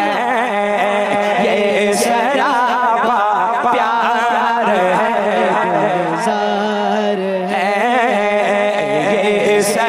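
A man singing a manqabat in long, wavering melismatic lines over a steady low drone.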